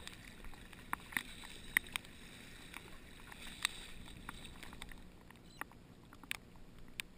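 Water dripping from a kayak paddle and splashing and slapping against the kayak's hull on the open sea, heard as scattered sharp ticks over a steady wash of water and wind.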